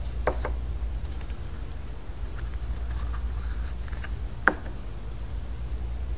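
Plastic toy pieces and Play-Doh being handled, giving small scattered clicks and ticks, with one sharp click about four and a half seconds in, over a steady low hum.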